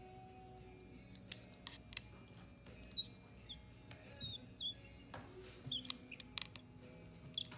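Faint scattered clicks and short high squeaks of small repair tools working the tiny screws out of an iPhone 7's internal plates, with faint background music.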